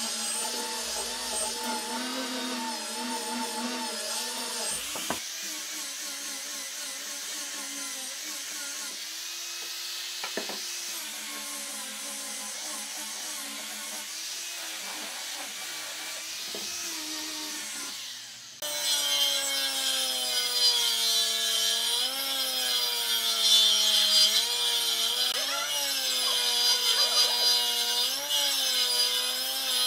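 Angle grinder fitted with a sanding disc running steadily as it sands a wooden board. After about 18 seconds this gives way abruptly to a jointer-planer cutting a long board, a louder machine whine that wavers in pitch.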